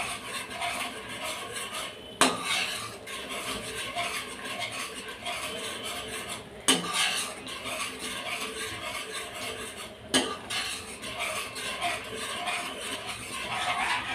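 A steel spoon stirring and scraping thick cashew masala around a non-stick kadai, with three sharper knocks of the spoon against the pan spread through the stirring.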